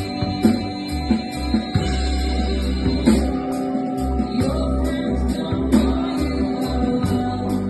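Live band playing a song, with guitar over a held bass line and a steady high percussion beat of about three strokes a second.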